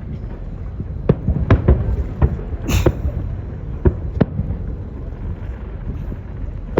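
Fireworks display: a string of sharp bangs from bursting shells, about seven in the space of a few seconds, over a steady low rumble. One burst just under three seconds in carries a brief hiss.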